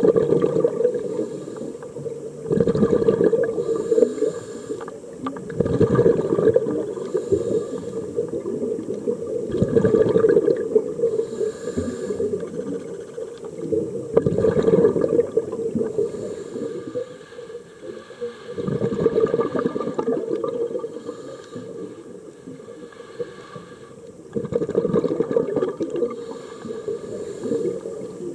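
A scuba diver breathing through a regulator underwater. Exhaled air leaves in bubbling rushes lasting a second or two, about every four to five seconds, with quieter inhalations between.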